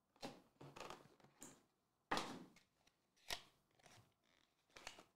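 Cardboard trading-card box being handled and opened by hand: a few short rustles and scrapes, the longest about two seconds in, and a sharp click just after three seconds.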